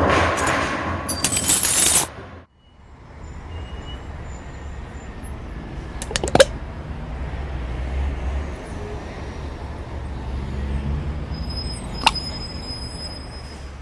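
A loud, harsh burst of noise for about two seconds that cuts off suddenly, then a steady low rumble of construction machinery, broken twice by a sharp click.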